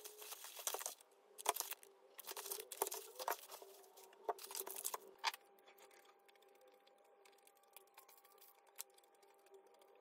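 Thin plastic carrier bag crinkling and rustling in bursts as its knotted handles are untied, for about five seconds. Then it goes quiet apart from a few light clicks over a faint steady hum.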